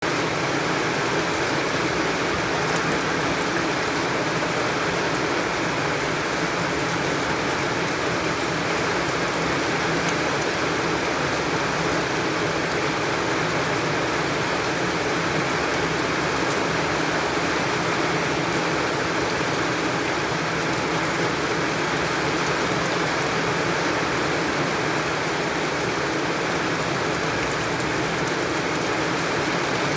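Rain falling steadily: an even, unbroken hiss that keeps the same level throughout.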